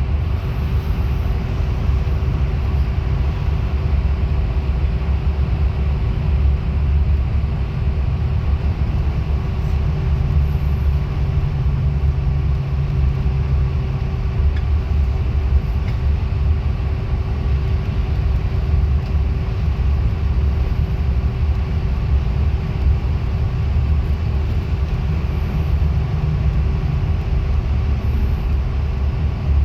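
A bus heard from inside its cabin while moving: steady low engine and road rumble with a constant faint whine.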